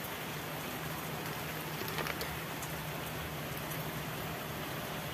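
Steady rain falling, an even hiss with a few faint drip ticks.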